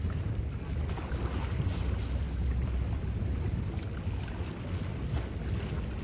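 A steady low rumble with wind buffeting the microphone.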